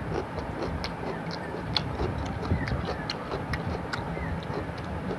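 A person eating rice and fish curry by hand, close to the microphone: chewing and lip smacking make a run of sharp, wet mouth clicks, several a second and irregular, over a steady low rumble.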